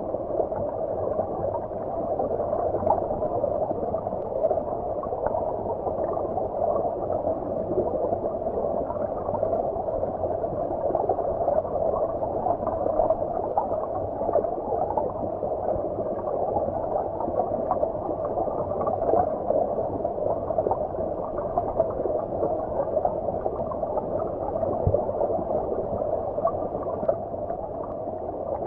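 Stream water gurgling, heard as if from underwater: a steady, muffled rush with the higher tones cut away.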